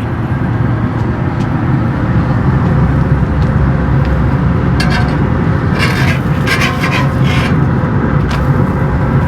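Steady low rumble, with a few short scrapes of a metal spatula on the flat-top griddle about five and again six to seven and a half seconds in.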